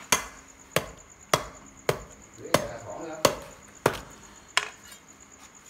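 Heavy cleaver chopping into a pig's head, eight sharp blows about two-thirds of a second apart that stop near the end.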